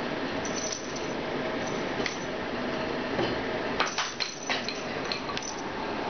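Small sharp clicks and clatters on a hardwood floor as a cat scrambles after and picks up a thrown toy, a cluster of them about four seconds in, over a steady background hiss.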